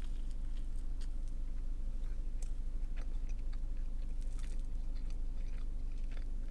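A person chewing bites of a grilled cheese sandwich whose toasted bread crunches, as scattered small crunches over a steady low hum.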